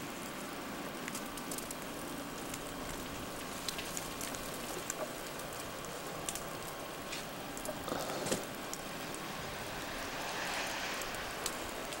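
Melting snow and ice dripping and dropping from snow-laden tree branches: irregular scattered ticks and patters over a steady hiss, with a brief louder rustle about eight seconds in.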